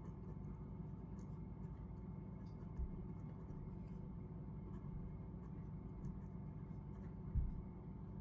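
Pen writing on paper: faint, intermittent scratches over a steady low background noise, with two soft thumps about three seconds in and near the end, the second the louder.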